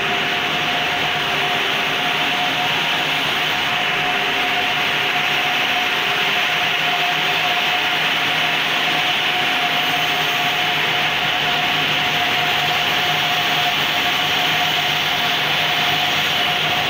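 Spinning-mill frames running: a loud, steady machine whir of many spindles and rollers, with one constant high tone running through it.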